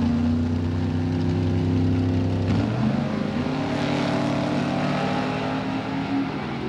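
Two drag-race cars' engines held at high revs on the starting line, then launching about two and a half seconds in and accelerating hard down the strip, the engine note sweeping up and then falling away near the end as they pass.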